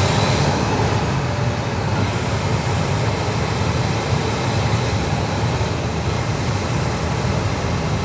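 Steady rushing of a mini truck's air-conditioning blower running, drawing disinfectant mist in through the cabin-filter opening, with a low hum underneath.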